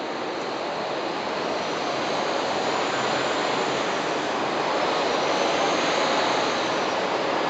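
Steady rushing noise of a busy city street, slowly getting louder, with a faint high whine that comes and goes twice.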